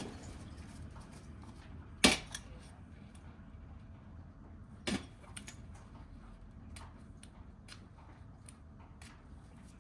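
Sparse sharp clinks and knocks, the loudest about two seconds in and another about five seconds in, with fainter ticks between, over a low steady rumble.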